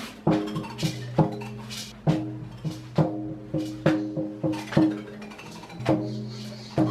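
Percussive music: sharp knocking strikes, roughly two a second in an uneven rhythm, over low sustained pitched notes.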